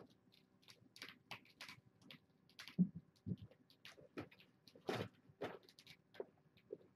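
Kittens at play on a carpeted cat tree and rug: scattered soft thumps, taps and scratches of paws and claws, with a heavier thump about three seconds in.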